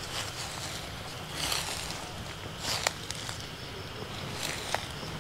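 Footsteps crunching and rustling through dry leaf litter, with thin branches and twigs brushing past in uneven spells. There are two sharp twig snaps, one about three seconds in and one near the end.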